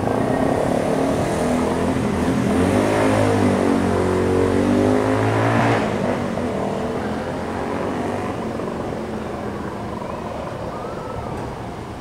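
Electric commuter train running past a railway level crossing, its traction motors whining in a pitch that falls and then rises again. It is loudest in the first half and fades away after about six seconds.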